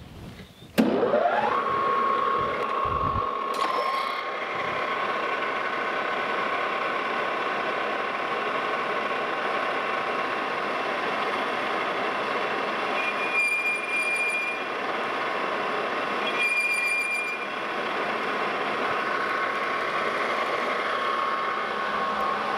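Lodge and Shipley metal lathe spinning up, its whine rising in pitch about a second in, then running steadily while a carbide insert tool faces off the end of a metal shaft. Twice, about two-thirds of the way through, a brief higher-pitched sound rides over the steady whine.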